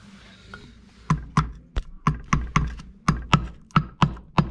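About a dozen sharp metal taps and clinks, roughly three a second, beginning about a second in: hand tools working on a dirt bike's two-stroke engine clutch during teardown.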